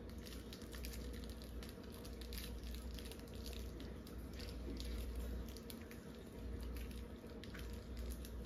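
Faint, scattered small clicks and crinkles of wrapped candies and pins being handled and pushed through candy wrappers into foam craft cones, over a low steady hum.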